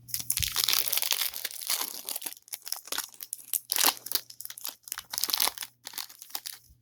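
Crinkling and crunching of trading-card packaging as a wrapper is torn open and crumpled. It comes in dense, irregular bursts that thin out and stop just before the end.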